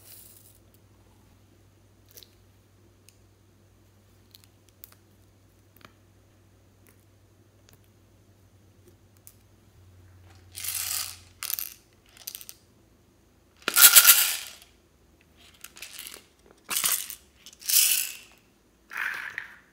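Small hard plastic objects being handled. A few light clicks come first, then from about halfway through a run of about eight short, loud rattling bursts, the longest and loudest about three-quarters through.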